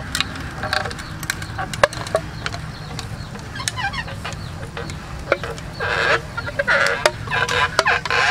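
Chickens clucking, with three louder bursts of calls near the end, over scattered sharp clicks and a low steady hum.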